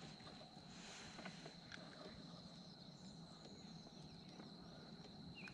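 Near silence: faint lakeside ambience with a steady, thin, high-pitched insect drone and a few faint ticks.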